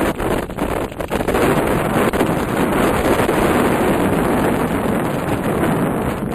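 Wind buffeting the microphone while riding on a road test, a loud, steady rushing noise that flutters briefly in the first second.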